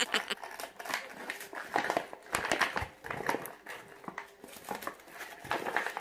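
Gift packaging and tape crinkling and rustling in irregular crackles as it is pulled and torn off a large boxed chocolate.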